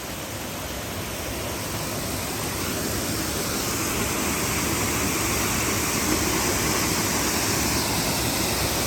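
Waterfall's steady rushing roar, growing louder over the first few seconds and then holding.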